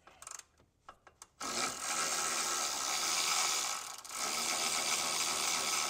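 Power ratchet running steadily, spinning out the E-Torx bolt at the steering column joint. It starts about a second and a half in, after a few light clicks, and breaks briefly about four seconds in.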